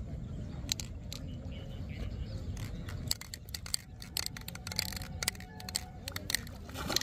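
A low steady rumble with scattered sharp clicks as a hand line is hauled in. Near the end comes a splash as the hooked catla fish thrashes at the surface.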